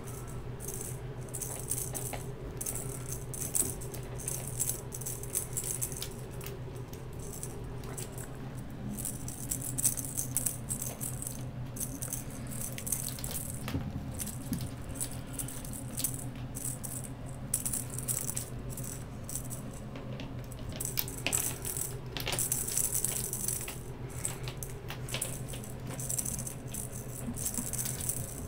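Cat wand toy rattling in irregular bursts as it is flicked about and batted by kittens, over a steady low hum.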